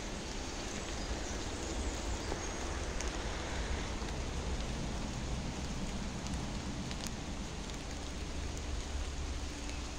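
Steady rain falling, an even hiss with a few faint sharp drop ticks, over a low rumble.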